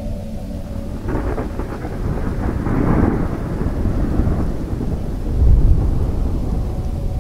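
Thunder rumbling with rain: the rumble swells about a second in and peaks near the middle, and a deep low boom comes later. Soft ambient music tones are heard at the start and again near the end.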